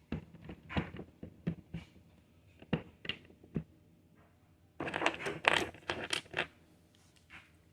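Small hard plastic Lego pieces clicking and clattering as they are handled: scattered single clicks, then a dense burst of clatter about five seconds in lasting roughly a second and a half.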